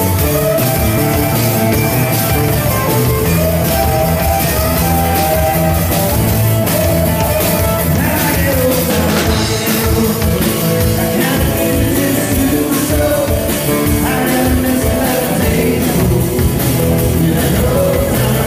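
A live rock and roll band playing loud, with electric guitars and drums and a voice singing.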